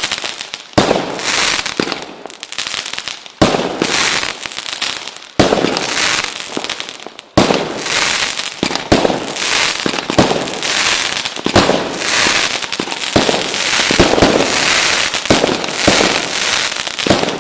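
Fireworks: four sharp bangs, each followed by several seconds of hissing crackle, then a dense run of crackling and rapid small pops from about halfway through.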